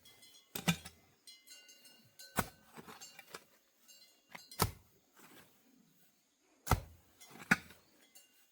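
A metal hand tool striking something hard: five sharp clinking blows at uneven intervals of one to two seconds, each with a brief ring.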